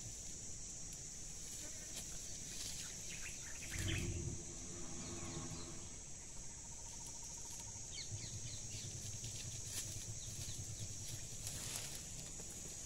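Steady high-pitched insect drone in dry scrub, with twigs and leaves crackling now and then. About four seconds in, a brief low hum rises and fades.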